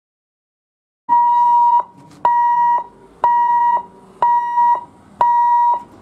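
Railway level-crossing warning hooter sounding five evenly spaced electronic beeps, each about half a second long, about once a second, starting a second in. The warning that the gate is closed for an approaching train.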